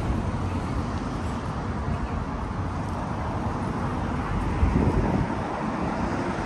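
Street ambience of a busy high street: steady road traffic noise, with a louder rumble swelling about four and a half seconds in.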